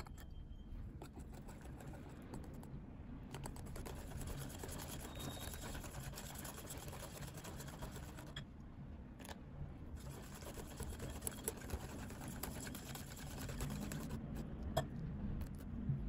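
Hand wire whisk beating a labneh and powdered-sugar icing in a glass bowl: a steady, faint run of quick scraping ticks of the wires against the glass, a little louder near the end.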